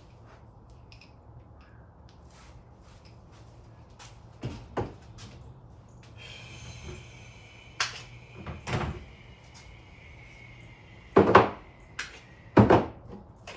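Knocks and clunks of tools and parts being handled at a workbench, with the two loudest thumps near the end. A faint steady high tone runs for a few seconds in the middle.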